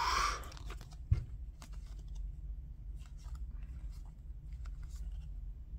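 Trading cards being handled and flipped through: a short crinkle at the start, a sharp tap about a second in, then faint scattered slides and ticks of cards against cards over a low steady hum.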